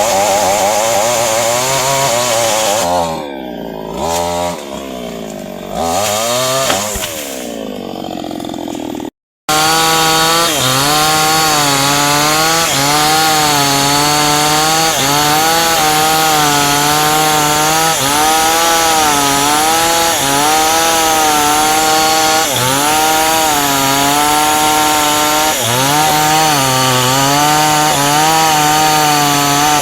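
Two-stroke chainsaw cutting through dense acacia hardwood. For the first few seconds it revs up and eases off repeatedly, its pitch swinging. After a brief break about nine seconds in it runs under steady load through the cut, the pitch dipping and recovering every second or two as the chain bites.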